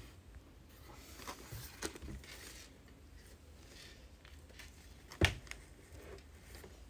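Plastic crinkling and rustling as a sneaker and its clear plastic bag of spare laces are handled, with one sharp click about five seconds in, the loudest sound.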